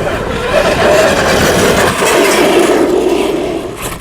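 Traxxas X-Maxx RC truck running, its brushless electric motor and drivetrain whining steadily over rough tyre noise, the pitch sagging a little near the end.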